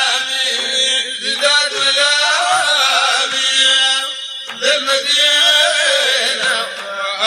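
Sudanese Sufi madeeh: male voices chanting a song in praise of the Prophet in Arabic, with long held, winding melodic lines over music.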